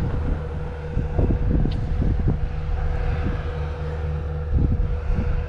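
Wind buffeting the microphone in irregular low gusts, over a steady low hum with a faint constant tone.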